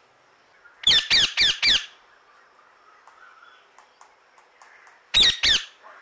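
Male Indian ringneck parakeet giving loud, shrill screeching calls: a quick run of four about a second in, then two more near the end.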